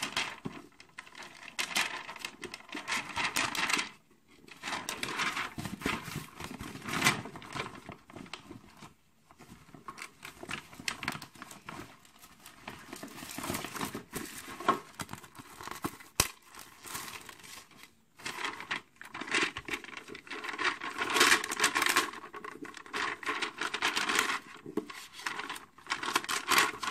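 Crinkling of a clear plastic sticker packet and sticker sheet being handled, with stickers peeled off the sheet, in irregular bursts broken by a few short pauses.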